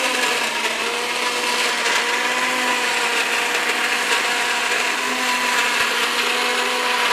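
Maharaja 800-watt mixer grinder running steadily at speed, blending papaya with water into juice in its plastic juice jug; an even motor whine over the churning of the blades.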